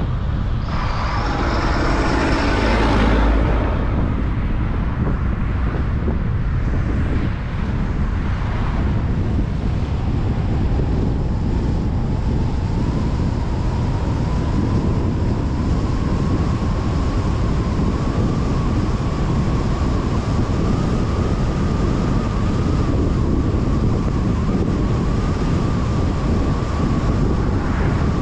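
Car driving on a highway: steady road and wind noise. A louder rush of noise lasts about three seconds near the start, and from about ten seconds in a thin whine rises slightly, then holds steady.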